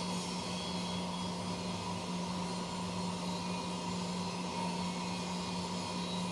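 CNC machine running steadily: an even mechanical noise with a constant low hum and a fainter steady higher tone, no change in load.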